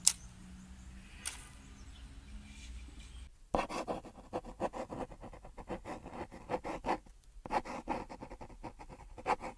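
Paper being handled, rustling and scratching in quick crackly runs from about a third of the way in, with a brief pause in the middle; before that only a low hum and a couple of sharp clicks.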